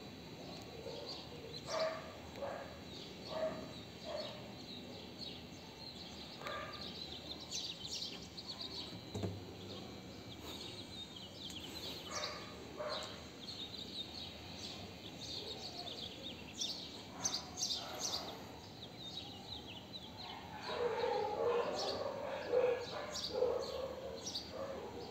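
Small birds chirping and twittering in the open air, with a dog barking and yipping in a run of short calls from about twenty seconds in.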